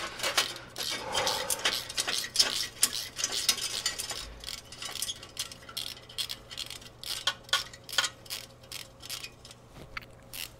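Light, irregular metallic clicks and scrapes as a hose clamp on a chrome exhaust heat shield is worked loose and turned with a small socket tool, the clicks coming closer together in the second half.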